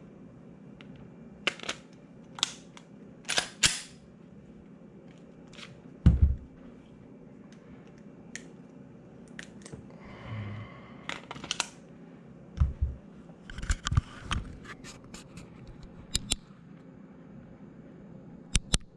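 Glock 27 pistol being handled: a scattered series of sharp clicks and clacks, with a heavier knock about six seconds in and a quick run of clicks near the end. Two brief rustles come around ten and fourteen seconds in.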